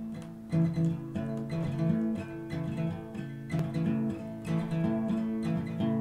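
Acoustic guitar playing a song's intro in a steady strummed rhythm, with a repeating pattern of low bass notes.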